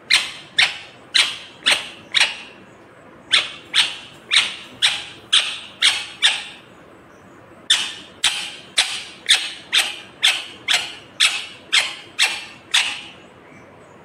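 Indian ringneck parakeet giving loud, short, sharp high calls, about two a second, in three bouts with brief pauses between: five calls, then seven, then eleven.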